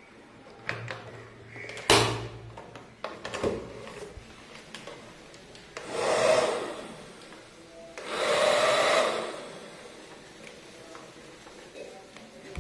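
Sharp plastic click about two seconds in, then a toy bubble gun's battery-powered fan motor whirring in two short bursts, each lasting about a second and swelling up and fading.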